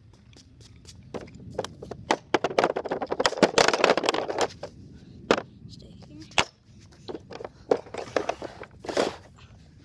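Rubber hockey pucks dropped onto a plastic shooting pad and knocking against one another: a dense flurry of clacks, then a few single sharp knocks and another short run of clacks near the end as they are stacked.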